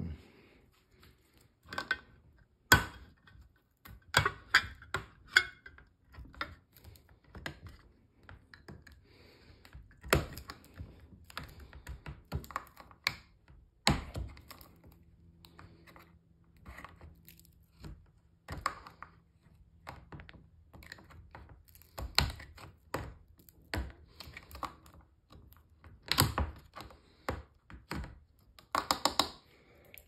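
Victorinox Swiss Army knife's hook-style can opener cutting around the tinplate lid of a can: irregular sharp clicks and cracks as the blade bites into and tears the metal, with short scraping between.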